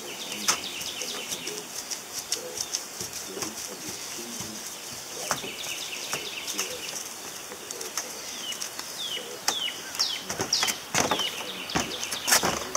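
Footsteps and light knocks on a corrugated tin roof, with birds chirping. A run of short falling chirps comes about two-thirds of the way through, and there are two louder knocks near the end.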